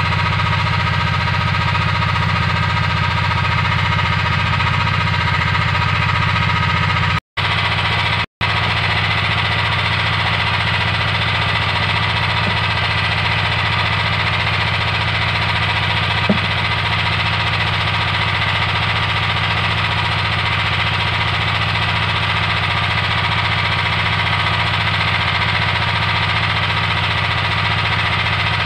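An engine running steadily at one constant speed, with no revving. The sound drops out to silence for an instant twice, about seven and eight seconds in.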